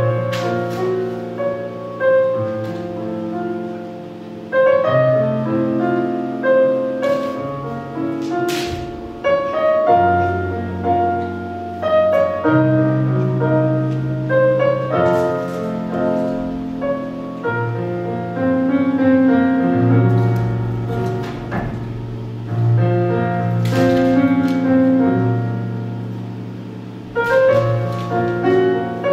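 Piano music: chords struck one after another and left to ring and fade, in slow phrases.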